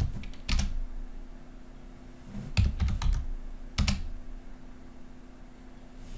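Computer keyboard keystrokes in two short groups about two seconds apart: a couple of keys and Enter, then a few more keys and Enter, as short answers are typed in at a console prompt.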